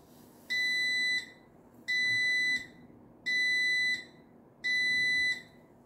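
Linear LDCO850 garage door opener's beeper sounding four long, steady, high beeps, evenly spaced about a second and a half apart. The beeps confirm that a programmed remote has been deleted from the opener's memory.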